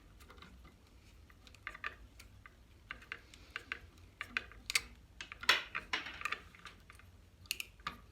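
Scattered small clicks and rustles of a plastic light switch and its wiring parts being handled, busiest about five and a half seconds in.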